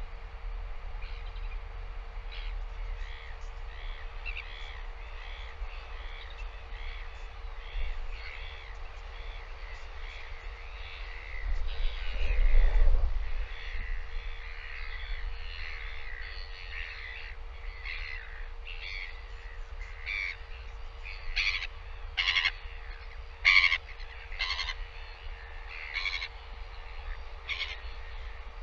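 Outdoor birds chirping and calling throughout, with a run of sharper, louder short calls, roughly one a second, in the second half. A brief low rumble comes about twelve seconds in.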